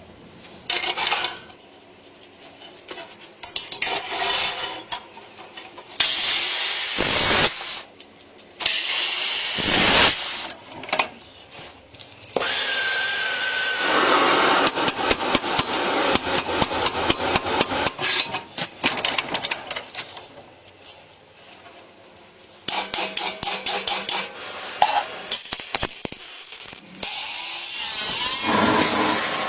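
Workshop tools working the sheet steel of a motorcycle gas tank: a series of separate cutting and grinding passes with knocks in between, the longest pass running steadily for about ten seconds in the middle.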